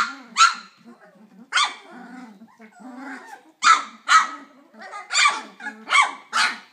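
Twenty-day-old flat-coated retriever puppies yipping and giving little high-pitched barks, about nine short sharp ones, with quieter, lower sounds between them.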